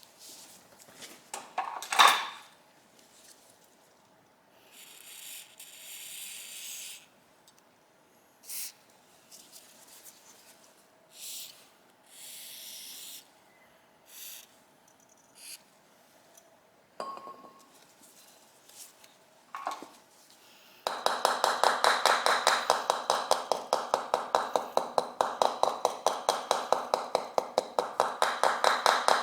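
Metal parts and tools clink and knock on the bench, with one sharp knock near the start and a few short hisses. About 21 seconds in, rapid even tapping begins, roughly five taps a second, from knocking on a seized cover of a 1985 Yamaha VMAX carburettor to break it free.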